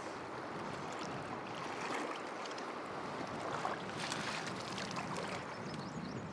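A river flowing steadily, water rushing and lapping, with a few sharper splashes about three and a half to four seconds in.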